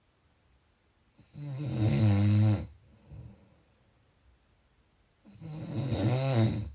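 Person snoring: two low, pitched snores about four seconds apart, each lasting about a second and a half.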